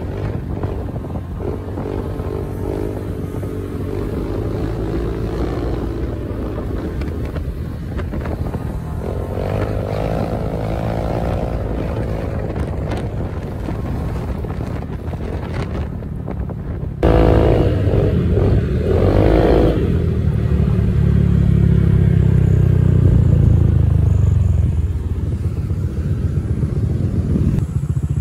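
Motorcycle engine sound heard from a Honda PCX 150 scooter while it is ridden, with wind noise; the engine pitch rises and falls with the throttle. About 17 seconds in the sound jumps abruptly louder, with motorcycle engines revving up and down.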